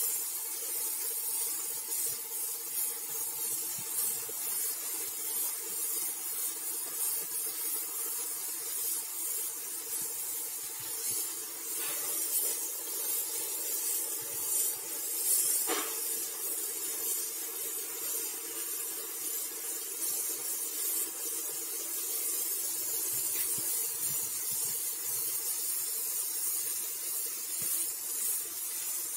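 Gravity-feed spray gun spraying paint with compressed air: a steady high hiss that swells and eases as the trigger is worked, over a steady low hum. One sharp click about halfway through.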